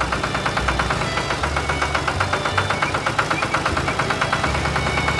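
Heavy vehicle engine running steadily with a rapid, even chugging of about eight pulses a second.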